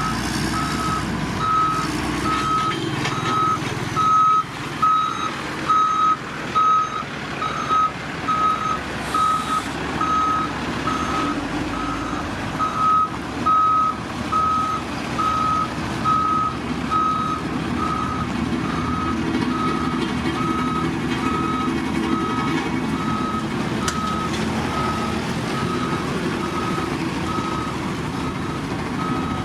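Reversing alarm of a heavy road-construction machine beeping steadily, a little more than once a second, over the low rumble of its diesel engine.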